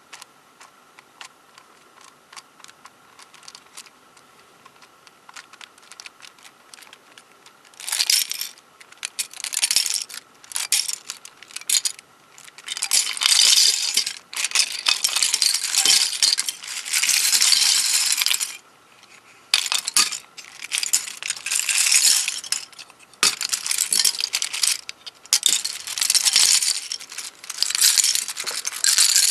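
Loose plastic pieces of a disassembled MoYu 13x13x13 cube clattering and rattling against each other in repeated bursts of a second or two, after several seconds of only faint small clicks.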